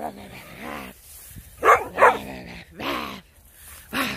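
A dog barking in play, in short sharp barks: two close together near the middle and others about a second apart.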